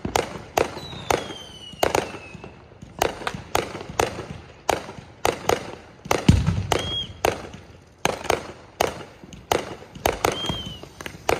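Aerial fireworks going off in a rapid string of sharp bangs, about two a second, with a heavier low boom about six seconds in. Several short whistles sound among the bangs, one of them falling in pitch near the start.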